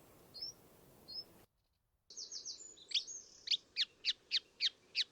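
Reed bunting song: a few short, stuttering high notes spaced well apart. After a brief silent break, a new recording begins: a buzzy phrase, then a steady run of sharp downward-sliding notes, about three to four a second, fitting the rhythmic chugging song of a reed warbler in a reed bed.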